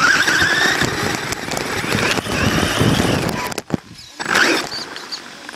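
HSP RC car's motor and drivetrain heard from a camera on its own chassis while driving over rough dirt, with a whine that rises in pitch in the first second over the rattle and crunch of the chassis and tyres. The sound drops away briefly past the middle, and a short loud burst follows about four seconds in.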